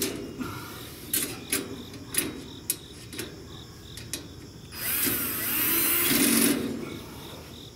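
Cordless drill running for about two seconds, driving a screw into the stainless steel sheet-metal grill cabinet. Before it come a few light metal clicks and knocks as the parts are handled into place.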